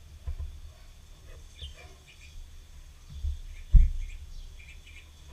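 Pencil sketching on paper: light scratchy strokes with a few low bumps against the table, the loudest a little under four seconds in.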